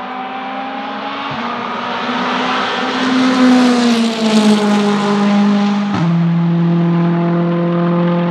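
Volvo S60 Polestar TC1 race car's turbocharged 1.6-litre four-cylinder engine accelerating toward and past, loudest about four seconds in, its note falling as it goes by. Sharp upshifts come about a second in and about six seconds in, each dropping the engine pitch, before a steady pull on the next gear.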